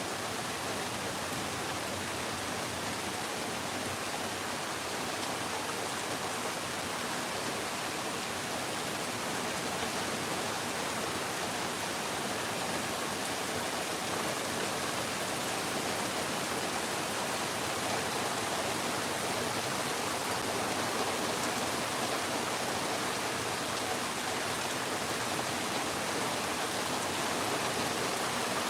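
Steady rain pouring down: a continuous, even hiss with no thunder, getting slightly louder over the second half.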